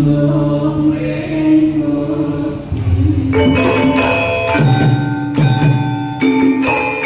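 Voices chanting together in a sustained, steady line. About three seconds in, a live gamelan ensemble comes in: bronze-keyed metallophones struck in rhythm with ringing notes, along with drum beats.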